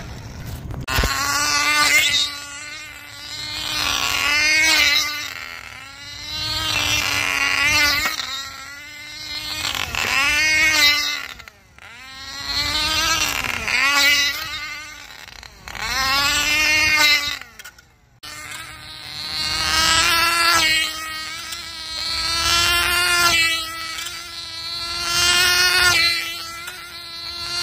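Cox .049 two-stroke glow engine of a tether car running flat out on a circle. Its high, steady whine swells and bends in pitch each time the car passes, about every three seconds.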